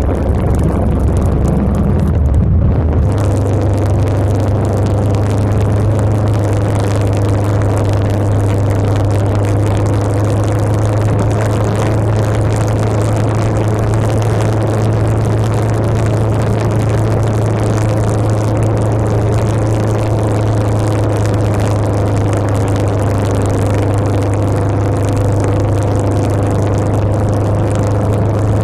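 Motorcycle engine running at a steady cruising speed, with wind and road noise over it. The engine note shifts about three seconds in, then holds an even hum.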